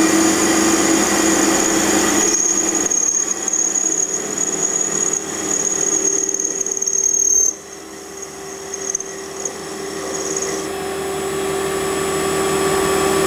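Small bench metal lathe running, its tool cutting the spinning shaft, with a steady high whine. About seven and a half seconds in the whine cuts off and the sound drops suddenly, then builds back up steadily towards the end.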